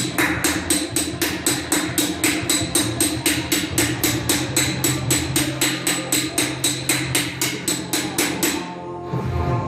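A planishing hammer striking metal on an anvil in a fast, even rhythm of about four blows a second, each blow ringing. It stops about 8.5 seconds in.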